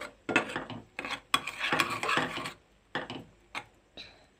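Flat metal spatula stirring thick, finished makhana kheer in a metal pan: several scraping strokes along the pan bottom in the first couple of seconds, then a few sharp taps of the spatula on the pan that die away near the end.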